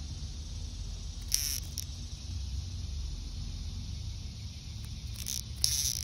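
Short bursts of high insect buzzing, once about a second in and again near the end, over a low steady rumble.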